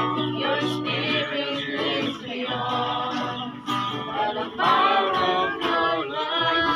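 Several voices singing together to a strummed acoustic guitar.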